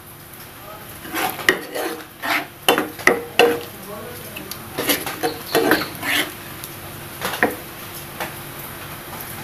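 A spoon stirring thick pineapple curry in a non-stick frying pan, scraping and knocking against the pan in irregular strokes that stop about seven and a half seconds in.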